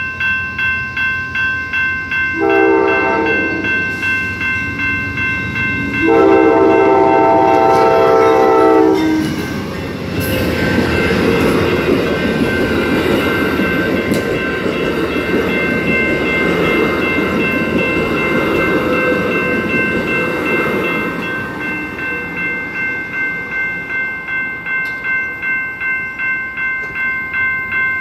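Grade-crossing warning bells ring steadily throughout while an Amtrak P42DC locomotive sounds its horn twice, a short blast and then a longer, louder one. The train then rumbles past for about ten seconds of wheel and car noise before the bells are left ringing alone.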